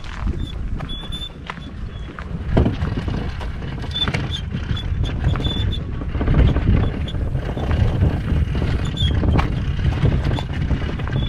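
Wind buffeting the microphone while a loaded kayak is pulled along on its C-Tug kayak cart, with scattered clicks and rattles and a few short high squeaks.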